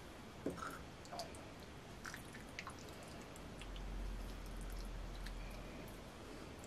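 Faint, scattered light clicks and soft squishy sounds of food being spooned and arranged on a plate, with a low hum rising in the middle.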